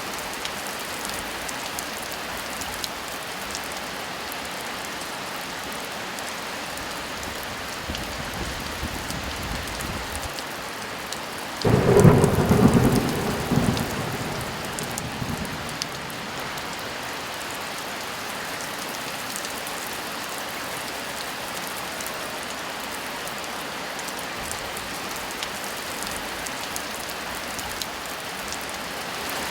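Heavy rain falling steadily, with a low distant rumble of thunder a third of the way in, then a loud thunderclap about twelve seconds in that rolls away over a few seconds.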